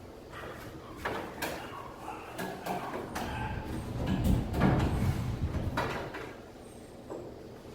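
Irregular knocks, clatter and scraping of handled objects, with several louder knocks about a second and a half, four and a half, and six seconds in.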